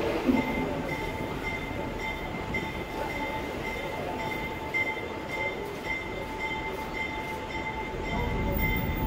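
New York City subway train on the J line, a steady high-pitched whine over a continuous rumble; the low rumble grows louder near the end.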